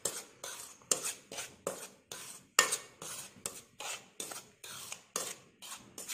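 Metal spoon stirring dry cake mix of flour and cocoa powder in a bowl, scraping against the bowl in short strokes about three times a second.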